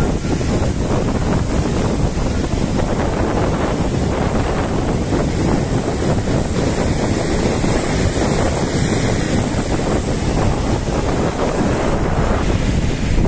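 Ocean surf breaking and washing up a sandy beach, with strong wind buffeting the microphone.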